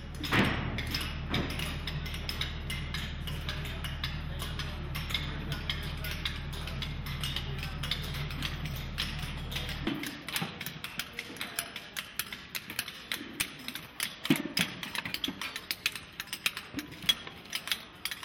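Work-site sound at a stepwell being desilted. For the first ten seconds or so a pump motor hums steadily, then it stops suddenly. After that come irregular clinks and knocks of hand tools on stone and metal scaffolding.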